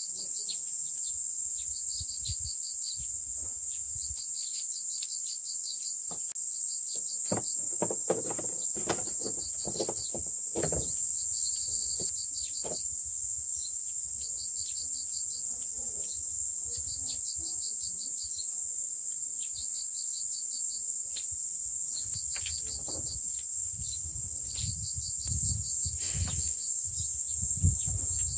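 Insect chorus: a steady high-pitched drone with a rapid pulsed chirping just below it. Scattered light knocks and rustles from plastic parts and wires being handled come and go, busiest between about a quarter and two fifths of the way in and again near the end.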